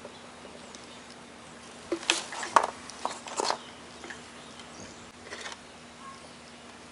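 A quick cluster of sharp clicks and light knocks, like small parts being handled, about two seconds in, with a couple more near the end, over a faint steady hum.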